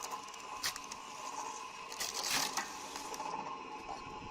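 Log splitter with a drill head working: a steady mechanical whine with scattered clicks and cracks, and a louder noisy burst about two seconds in.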